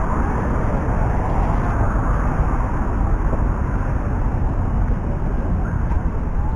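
Steady noise of road traffic on a busy city avenue.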